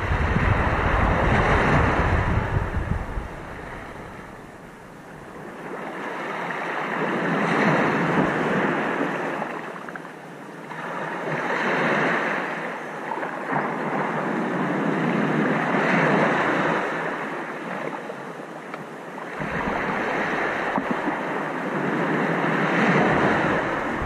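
Ocean waves breaking and washing in, the surf swelling and ebbing about every four to five seconds. A low rumble sits underneath at the start and again near the end.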